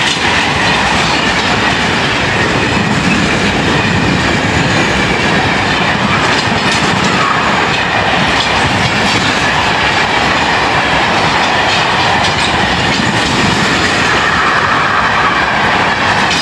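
Freight train of car-carrier wagons rolling past, hauled by a Class 66 diesel locomotive, with a loud, steady rumble of wheels clattering over the rail joints and faint wheel squeal.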